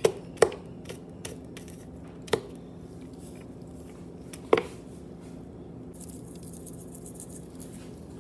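Kitchen handling sounds: a few scattered sharp knocks and clicks of utensils on the cutting board, the loudest about halfway through, over a low steady hum. Near the end, a soft rustling as the phone is picked up and moved.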